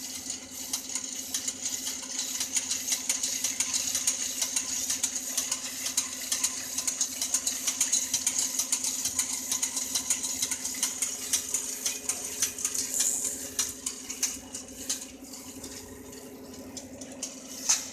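Flywheel, spur gears, chain and small DC dynamo of a model generator rig spinning: a steady hum with rapid clicking from the gear train. It quietens about fourteen seconds in, with a sharp click near the end.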